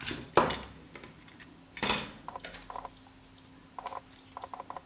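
Sharp clicks and light clinks of small parts and tools being handled while the phone's display assembly and its retainer are taken apart, the loudest click about half a second in and another near two seconds, then a few quieter ticks.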